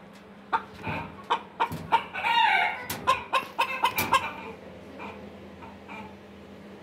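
Chocolate Silkie chicken squawking and clucking in a rapid run of short calls, with one longer squawk about two seconds in, as it is picked up and held by hand; the calls die away about four and a half seconds in.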